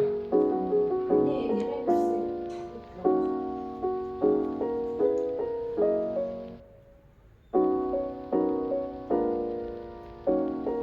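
Background music: soft piano chords, breaking off for about a second midway before starting again.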